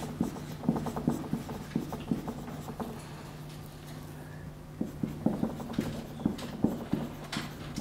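Irregular light tapping and scratching of writing, in two spells with a short lull between, over a steady low hum.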